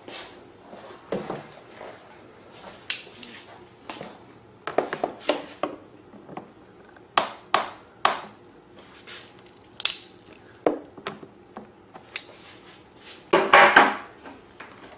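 Pliers and a metal hose clamp clicking and clinking in short, irregular knocks as the clamp is worked onto a rubber fuel hose, with a longer, louder clatter near the end.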